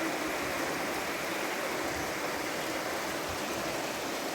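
Floodwater rushing after heavy rain: a steady, unbroken rush of water.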